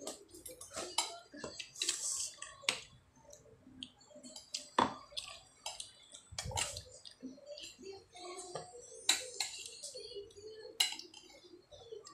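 Spoons and forks clinking and scraping against plates during eating, an irregular series of sharp clicks.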